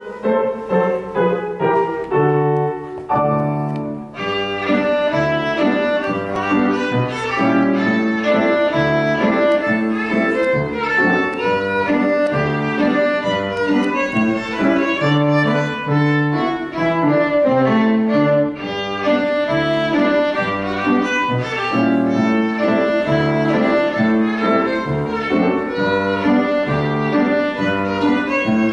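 Violin playing a tune in quick, short notes with grand piano accompaniment; the sound grows brighter and fuller about four seconds in.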